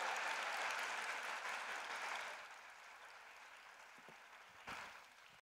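Audience applauding, loudest at first and slowly fading, with a brief swell near the end before it cuts off abruptly.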